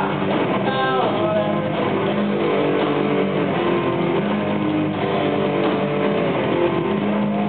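Rock band playing live, electric guitars to the fore over bass and drums, the notes held steadily throughout.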